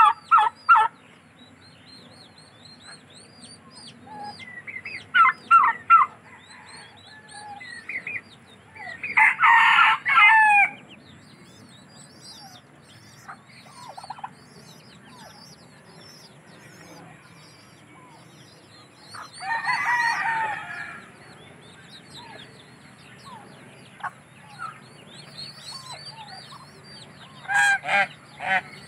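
Backyard poultry calling: a rooster crows, long and loud, about a third of the way in and again about two-thirds in, with shorter clucking calls near the start, around five seconds in and near the end. Thin high peeping of a duckling runs underneath.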